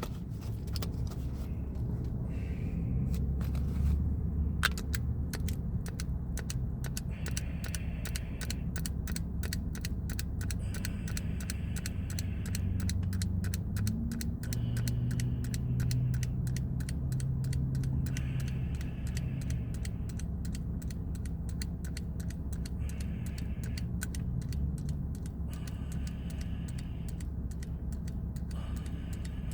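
Vise-Grip locking pliers squeezed shut over and over, each squeeze ending in a sharp click, in a quick steady run of clicks that lasts throughout, over a steady low rumble.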